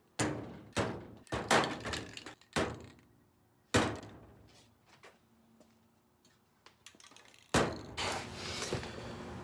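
Aerosol spray paint cans set down one after another on a table: about six sharp thunks in the first four seconds. A louder continuous rustling noise starts near the end.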